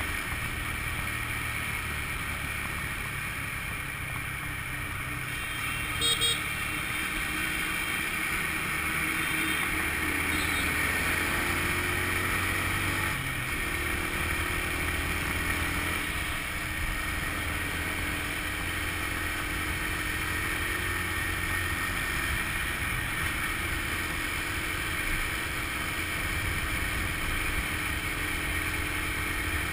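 Honda scooter engine running steadily at cruising speed, with wind and road noise. A short horn beep sounds about six seconds in.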